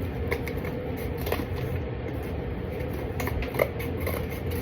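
Card being cut by hand: a few short, sharp snips and clicks, the loudest about three and a half seconds in, over a steady background hum.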